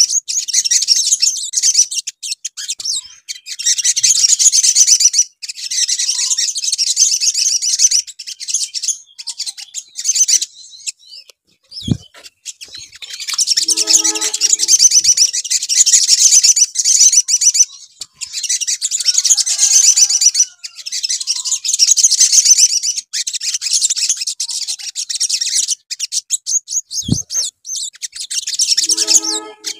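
Olive-backed sunbird song: rapid, high-pitched trilling and chattering phrases lasting a few seconds each, with short breaks between them. This is the sogon lure song ('pancingan') used to provoke caged sunbirds into singing.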